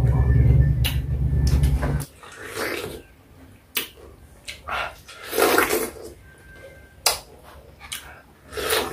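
Close-miked eating of a juicy peeled pineapple: wet bites, slurps and smacking chews in several separate bursts at uneven gaps. A loud low hum runs for about the first two seconds and then cuts off suddenly.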